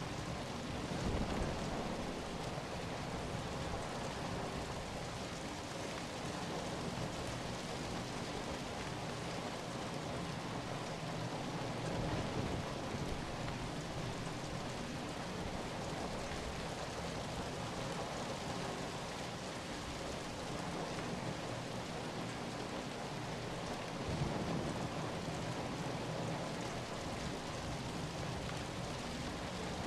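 Steady rain falling in a dense, even hiss, with a few short low swells about a second in, near the middle and a little before the end.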